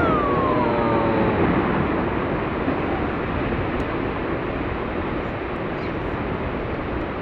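Deep rumble of glacier ice breaking off the Perito Moreno Glacier's front, slowly fading. A drawn-out, falling vocal exclamation sounds over it at the start.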